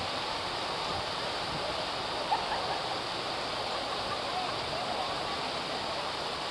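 Fountain jets arcing into a large round pool and splashing onto the water: a steady, even rush of falling water, with one short tick about two seconds in.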